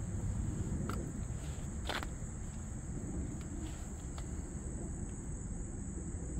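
Insects chirring in a steady, high-pitched drone, over a low outdoor rumble, with a couple of light clicks about one and two seconds in.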